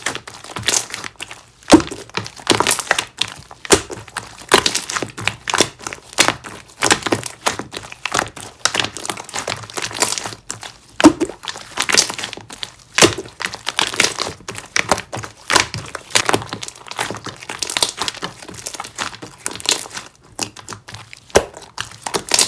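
Clear jelly-textured slime being squished and pressed by hand, giving a dense run of irregular sticky clicks and pops.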